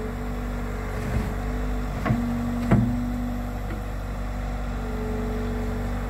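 Bobcat T66 compact track loader's diesel engine running steadily while the loader works its bucket, with a held tone that comes and goes and three short knocks between about one and three seconds in.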